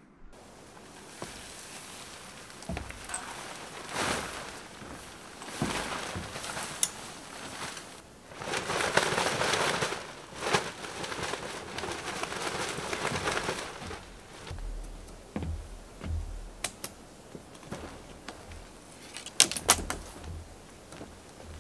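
Nylon tent fabric rustling and camping gear being handled as a backpacking tent and its rain fly are taken down and packed. The rustling comes in uneven swells, the longest in the middle, with scattered sharp clicks and a few dull low thumps in the second half.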